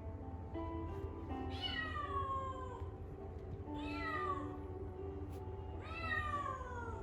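Kitten meowing three times, each call about a second long and falling in pitch, over background music with held notes.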